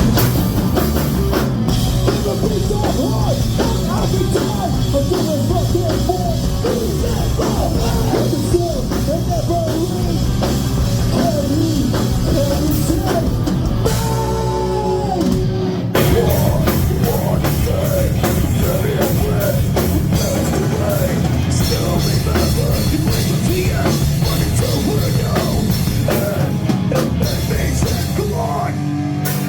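Hardcore punk band playing live: loud distorted guitars, bass and drums. The music briefly thins about halfway through, with a sliding tone, then comes back in at full force.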